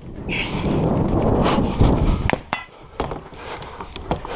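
Movement noise of a rifle shooter moving between shooting positions: about two seconds of dense rumbling, rustling noise, then a few sharp knocks.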